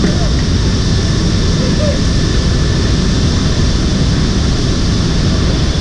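Steady loud noise of a military transport aircraft's engines and rushing air, heard inside the cargo hold while paratroopers exit through the open jump doors.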